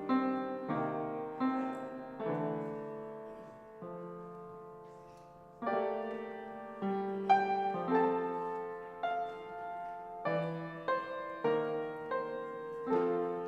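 Solo piano playing slow chords, each struck and left to ring and fade before the next.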